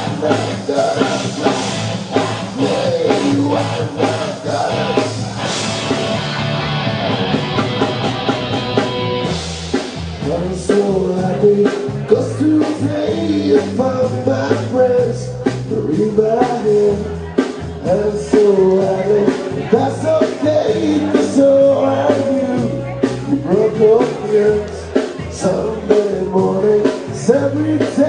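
Live rock band playing, with singing and drums. About ten seconds in, the band comes in heavier with more bass.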